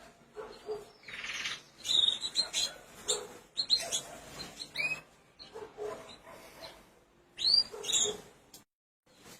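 Canary chirping: scattered short, sweeping high-pitched call notes, loudest about seven and a half seconds in.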